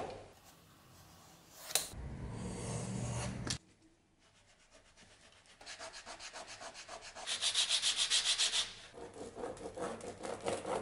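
Leather being slid and handled on the work board, then after a short pause a hand rubbing back and forth over a strip of leather in fast, even strokes, about five a second, loudest in the middle of the run.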